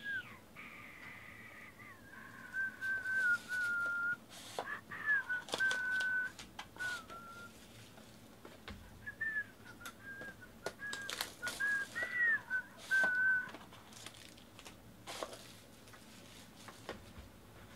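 A man whistling a tune in short held notes, while foil card-pack wrappers crinkle and tear. The whistling stops a few seconds before the end, leaving only the wrapper crinkling.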